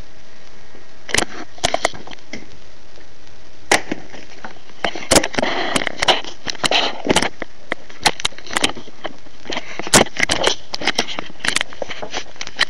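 Hard plastic parts of an SPD Megazord toy clicking and clattering as they are flipped and snapped into place. The clicks are scattered, with a denser rattling run about five to seven seconds in.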